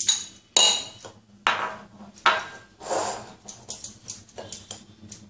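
Glass bowls knocking and scraping together as semolina is tipped from a small glass bowl into a larger one: four sharp clinks in the first three seconds, then a few lighter clicks.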